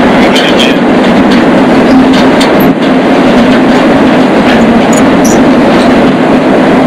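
Moving freight train heard from on board, right beside a truck trailer carried piggyback on a flatcar: a loud, steady rumble and rattle, with scattered sharp metallic clicks and squeaks.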